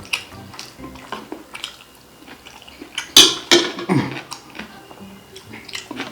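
Close eating sounds at the table: short crisp clicks and crackles, with a louder dense cluster about three seconds in, over faint background music.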